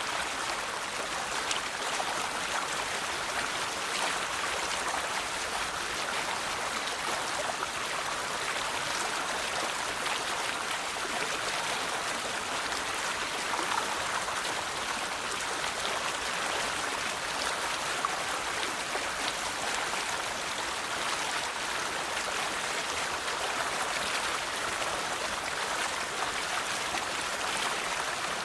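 River water flowing and splashing over rocks: a steady rushing with small splashes and drips throughout.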